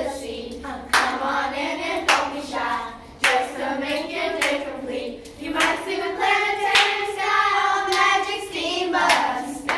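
A group of women and children singing together in unison, with hand claps cutting through the voices.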